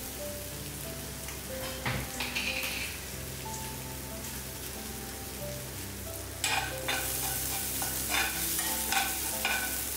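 Peas, onion and spices sizzling in oil in a cast-iron kadai over a gas flame. From about six and a half seconds in, a spatula scrapes and stirs the mix against the pan in repeated strokes.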